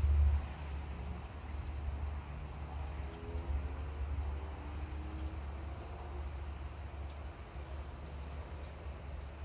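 Outdoor morning ambience under a passing storm: a steady low rumble with faint bird calls and chirps over it, a few short calls about three to four seconds in.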